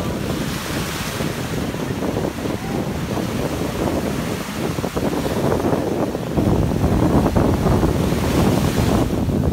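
Small waves breaking and surf washing in shallow sea water, mixed with wind buffeting the microphone; louder from about six seconds in.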